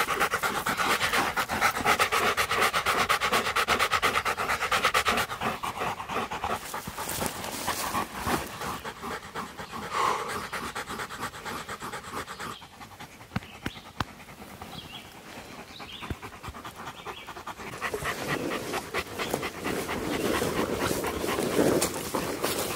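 A Rottweiler and a German Shepherd panting hard, in fast even breaths, from the exertion of a hike. The panting eases for a few seconds past the middle and then picks up strongly again.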